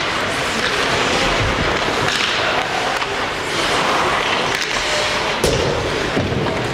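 Ice hockey play in an indoor rink: skates scraping and carving the ice with scattered clacks of sticks and puck, and one sharp clack about five and a half seconds in.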